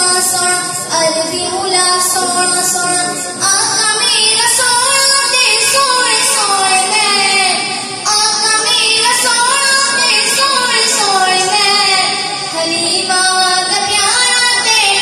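A boy's voice singing an Islamic devotional poem (naat-style) unaccompanied into a microphone, in long, ornamented held phrases with a short breath about eight seconds in.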